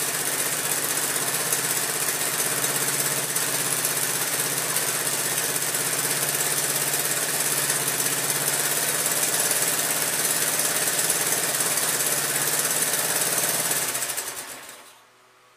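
Honda ATC 185S three-wheeler's air-cooled single-cylinder four-stroke engine running steadily at idle after a cold start, with a fast, even beat. The sound dies away about fourteen seconds in.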